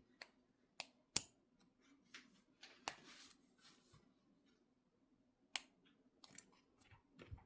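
Scattered small metallic clicks and a brief scrape from a tool working the double lock on a pair of Peerless 700C handcuffs. The sharpest clicks come about a second in, near three seconds and past halfway.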